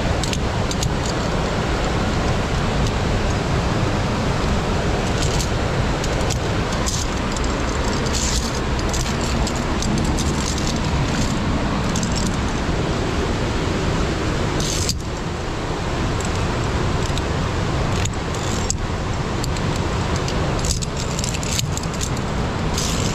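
Metallic clinks and jangles of via ferrata climbing gear (carabiners and lanyard hardware) come at irregular moments, the sharpest about a dozen seconds in and near the end. They sit over a steady rushing noise that does not let up.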